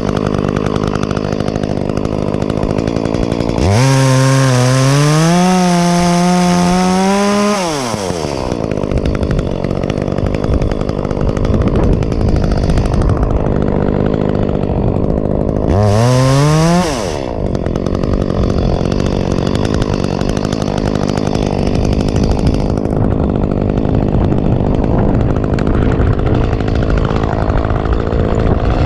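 Echo two-stroke chainsaw running at low speed, revved to full throttle for about four seconds a few seconds in and again briefly about halfway through, the pitch falling back each time.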